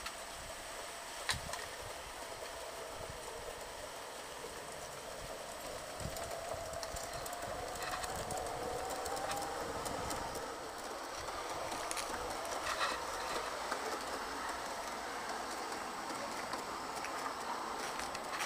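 Gauge 1 garden-railway model train running along the track, its wheels rolling over the rails, growing louder about six seconds in as the coaches pass close by. A thin whine rises in pitch for a few seconds, with a few sharp clicks along the way.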